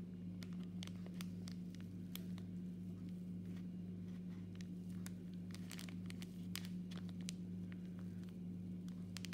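Steady low hum with scattered faint clicks and rustles of small materials being handled: CDC and partridge fibres being pressed and folded in a foam block clip.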